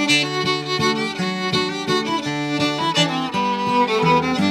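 Fiddle playing a waltz melody over regularly plucked guitar chords.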